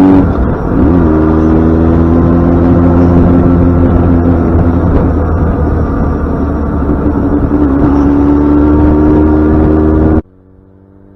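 Yamaha FZ6n's 600 cc inline-four engine pulling under acceleration. Just after the start there is a brief dip in pitch, like a gear change, and then the engine note climbs slowly and steadily. Near the end it cuts off abruptly and a much quieter engine sound takes over.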